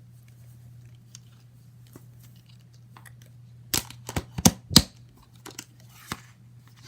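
Slime being squished and worked by hand: mostly quiet handling with faint clicks, then a quick run of loud sharp pops and crackles about four seconds in, and a few more shortly after. A steady low hum sits underneath.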